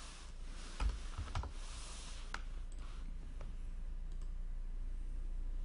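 A few scattered, sharp clicks from a computer mouse and keyboard, most of them in the first half, over a low steady hum.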